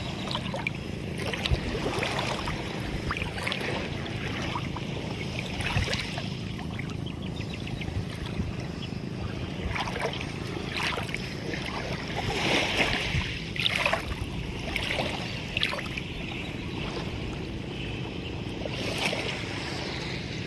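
Seawater splashing and bubbling at the surface in irregular splashy surges over a steady low rumble, strongest about twelve seconds in and again near the end.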